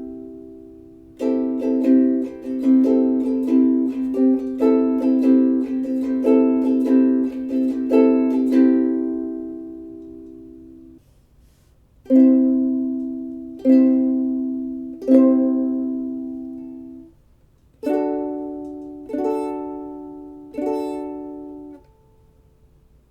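Ukulele strummed. First a quick run of open-string strums rings out; then one chord is strummed three times and another chord three times, each strum left to ring.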